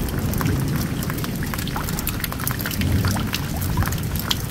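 Heavy rain falling, with many sharp drops hitting a wooden deck and the water in brimming plastic tubs. A low rumble of thunder runs underneath and swells about three seconds in.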